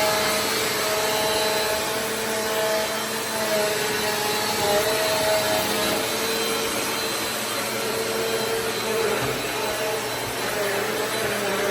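Vacuum cleaner running steadily: a rushing air noise with a motor hum that wavers slightly in pitch.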